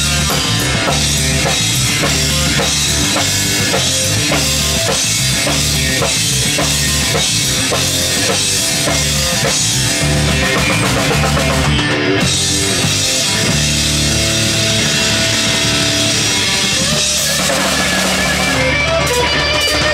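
Live rock band playing an instrumental passage with no vocals: electric guitars over a drum kit keeping a steady kick-drum beat.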